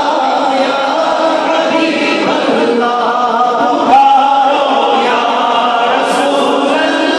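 A large crowd of men chanting together in unison, many voices at once and sustained throughout, with one voice close by standing out loudly about four seconds in.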